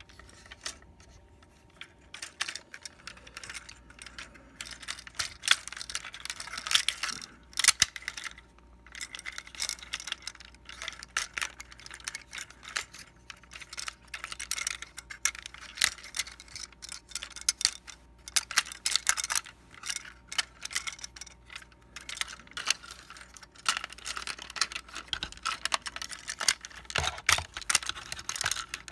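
Hard plastic parts of a Transformers Titans Return Six Shot action figure clicking and clattering as they are handled and shifted, in bursts of rapid small clicks with short pauses.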